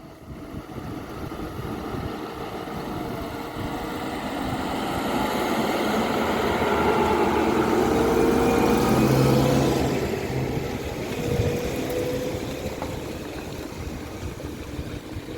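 Heavy farm machinery engine running under load with broad mechanical noise. It grows louder to a peak about nine seconds in, then fades somewhat.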